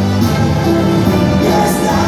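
Live banda music: the band playing steadily, with held notes.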